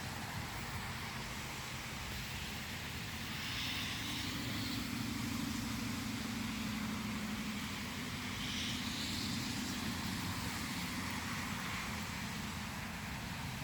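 Outdoor ambience with the low drone of a passing engine, swelling for several seconds in the middle and fading again, over a steady hiss of air.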